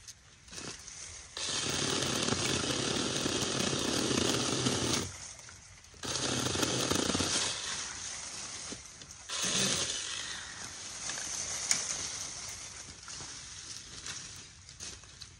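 Small battery-powered mini chainsaw running in three bursts of a few seconds each as it cuts into brush.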